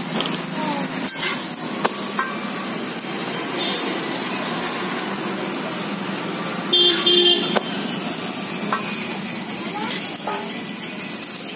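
A buttered paratha sizzles steadily on a large flat iron tawa, and a steel spatula scrapes and taps on the griddle. About seven seconds in, a vehicle horn honks for about a second.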